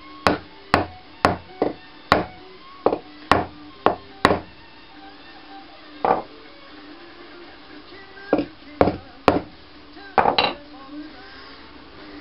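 Hammer tapping a walnut wedge into the kerf of a through-tenon in a wooden base, locking the glued joint. About nine quick, sharp taps come in the first four seconds, then a few more spaced taps, with a short flurry near the end.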